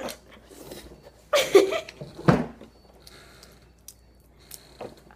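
Cajun boiled peanuts being cracked open and chewed: a few short, wet crunching and squishing sounds, the loudest about a second and a half and about two seconds in.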